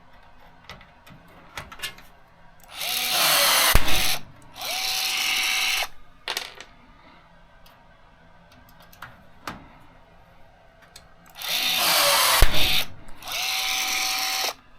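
Pneumatic rivet puller setting blind rivets, twice. Each time the air hisses for about a second and ends in a sharp snap as the mandrel breaks off, then a second steady hiss with a faint whine follows as the tool resets.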